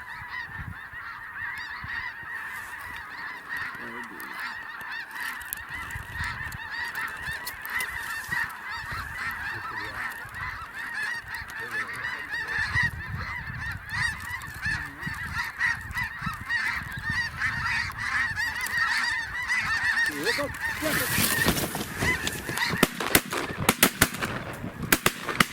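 A large flock of snow geese calling all at once, a dense, unbroken chatter of high honks. Near the end several sharp cracks stand out above the flock.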